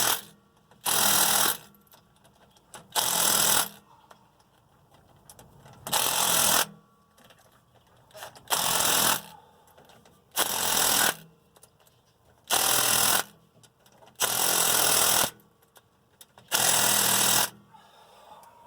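Power tool driving in the rear differential cover bolts one by one, in about eight short bursts roughly two seconds apart.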